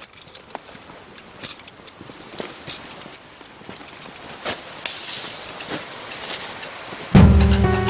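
Irregular rustling with many sharp crackles and clicks, then music with a strummed guitar starts abruptly near the end.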